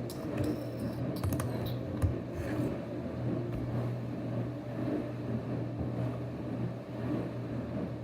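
Light clicks and taps of plastic Play-Doh tubs and lids being handled, over a steady low hum; one sharper click about two seconds in.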